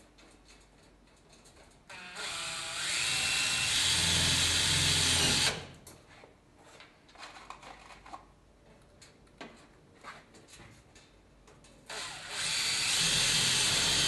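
Makita cordless drill driving self-drilling screws into galvanised steel cable tray, in two runs of about three and a half seconds each: one starting about two seconds in, the other near the end. Between them come small clicks and rattles of nuts and bolts being fitted by hand.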